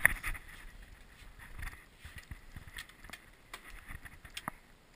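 Airsoft gunfire and BBs striking nearby cover: a dozen or so sharp clicks and taps at irregular intervals, fainter and sparser toward the end.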